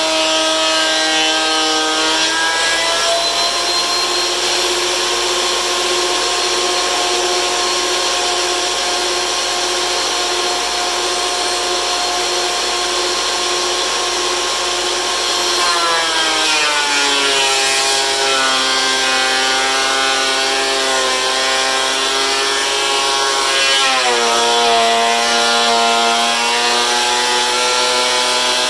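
DeWalt benchtop thickness planer running, its motor whine and cutterhead noise steady while the boards are fed through. The whine glides lower about halfway through and drops again a few seconds before the end.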